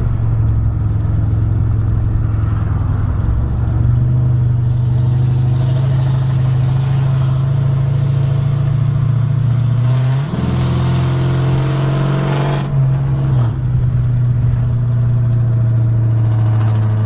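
Straight-piped 5.7-litre Hemi V8 of a Chrysler 300C, a true dual 3-inch exhaust with no mufflers, resonators or cats, droning while driving. About ten seconds in it climbs in pitch and gets louder under acceleration, then drops back down about three seconds later.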